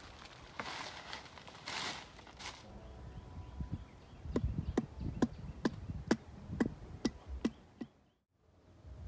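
A meat cleaver chopping at the end of a bamboo pole: about nine sharp knocks, roughly two a second. Before them, rustling in the undergrowth.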